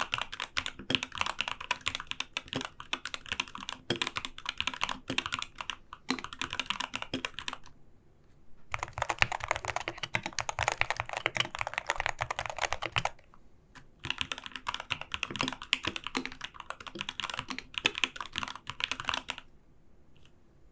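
Typing on an Arbiter Studio Polar gaming keyboard: quick runs of keystrokes, broken by short pauses about eight and thirteen seconds in. The middle run is faster and fuller.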